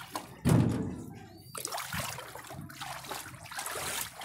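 Shallow flood water splashing and sloshing as it is waded through, with one loud splash about half a second in, then smaller uneven splashes.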